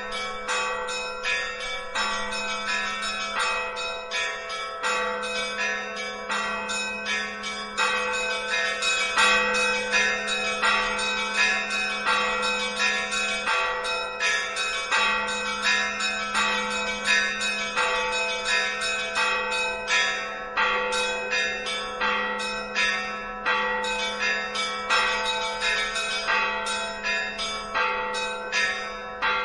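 Church bells ringing, a continuous run of quick strikes several a second over a steady ringing hum.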